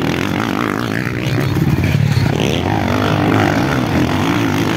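Motocross dirt bikes revving hard through a corner, one bike after another, the engine pitch rising and falling with the throttle.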